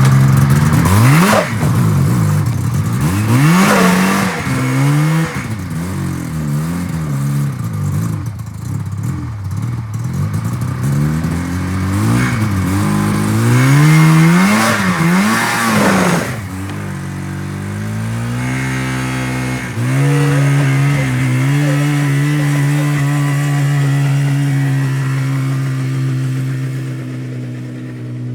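1980 Yamaha SS 440 snowmobile's two-stroke engine revving up and down in repeated surges while moving, then holding a steadier, lower speed from about two-thirds of the way through. The owner finds the clutch popping and banging on this run, a sign that something is badly wrong with it.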